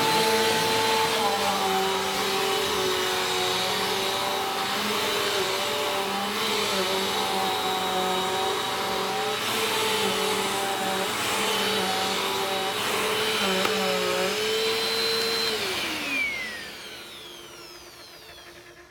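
Bissell vacuum cleaner running, its motor tone shifting in pitch now and then as it works. About three-quarters of the way through it is switched off and the whine falls away as the motor spins down, the weird noise it makes when turned off.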